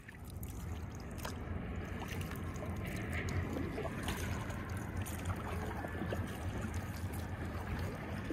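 Paddle strokes dipping and splashing beside an inflatable tandem kayak, with water trickling off the blades and small knocks, over a steady low rumble.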